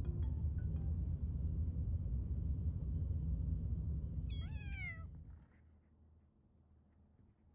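A kitten gives one meow falling in pitch, about four seconds in, over a low rumbling noise that stops shortly after.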